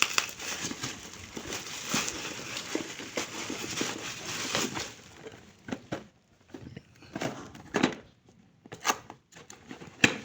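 Packaging crinkling and rustling as a boxed Wi-Fi CCTV camera is unpacked: steady crinkling for about five seconds, then a few separate rustles and clicks with short pauses between them.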